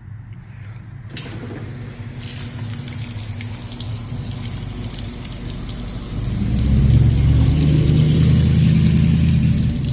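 Direct-drive top-load washing machine starting up a second or so in: the motor hums steadily while water rushes through the pump and drain. The hum grows louder about six seconds in.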